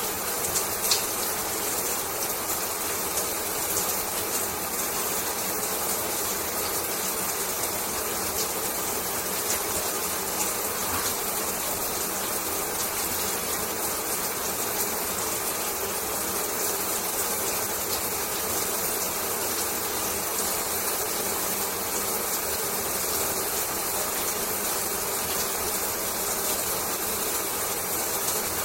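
Shower running: a steady spray of water, with faint scattered ticks of drops.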